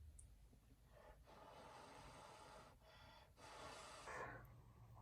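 A person's breath blown out in three long, soft puffs, the last one loudest.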